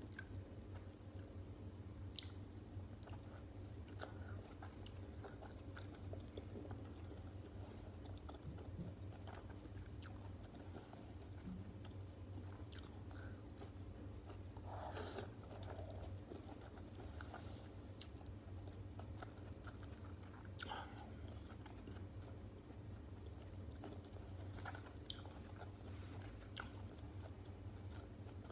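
A person chewing and biting stuffed cabbage rolls close to the microphone: scattered soft mouth clicks, two a little louder about 15 and 21 seconds in, over a steady low hum.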